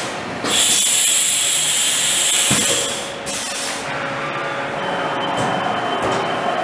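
Powered-up CNC vertical machining center running with a steady mechanical hum. About half a second in comes a loud hiss of air with a high whistle in it, lasting about two and a half seconds, then a shorter hiss.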